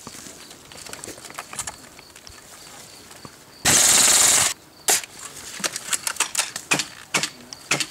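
Airsoft electric rifle, a G36-style gun with a drum magazine, firing a full-auto burst of just under a second, loud and hissy, starting and stopping abruptly about halfway through. Scattered sharp clicks follow.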